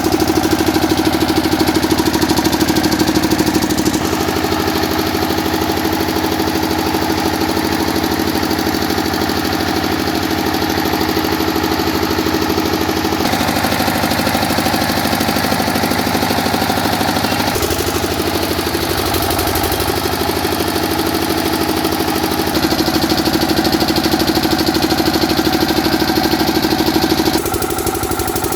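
Bharat 7.5 kVA generator's 12 HP engine running steadily, its note and loudness shifting in steps several times as it runs.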